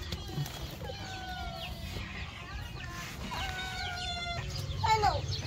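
Chickens clucking, with two drawn-out calls, one about a second in and one past the middle, and a short falling call near the end.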